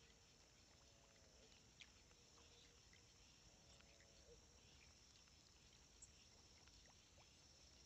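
Near silence: a faint steady high insect trill over the lagoon, with a few faint arching calls about one and four seconds in and a couple of soft clicks.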